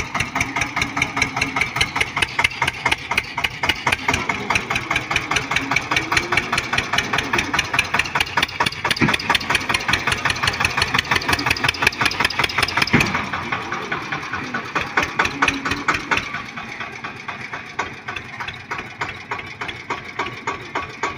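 Eicher 242 tractor's diesel engine running steadily as it hauls a loaded paddy trolley, a rapid even chug that drops in level and sounds duller about two thirds of the way through.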